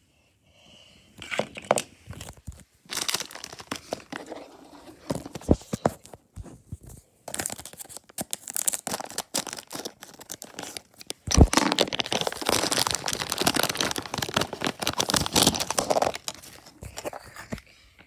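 Plastic foil blind-bag wrapper being crinkled and torn open by hand, in irregular crackling spells, with a sharp snap about eleven seconds in followed by several seconds of dense crinkling.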